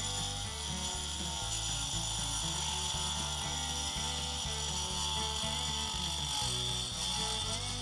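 Angle grinder with a cutting disc running steadily under load, sawing through a fired-clay hollow-core brick slab with a steady high-pitched whine. Background music with a steady beat plays underneath.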